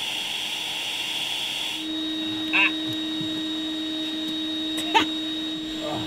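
Homemade bee vacuum, a vacuum cleaner run at half strength pulling air through a hose into a collection bucket, running steadily with a steady hum and rush of air; the tone of the air changes about two seconds in, and there is a short click near the end.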